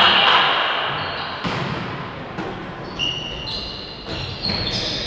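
Reverberant sports-hall noise dying down, with a few ball thuds and several short sneaker squeaks on the court in the second half.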